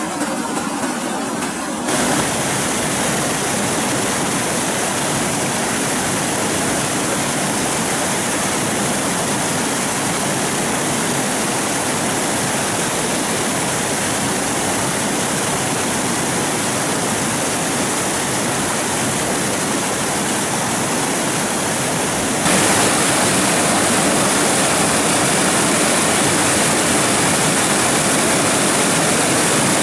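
Steady rush of flowing water, loud and even, that changes abruptly about two seconds in and again about three quarters of the way through, each time a little louder.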